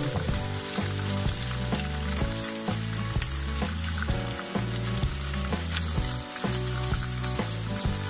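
Breaded prawn skewers frying in hot oil in a frying pan, a steady, busy sizzle. Background music with a steady bass line plays underneath.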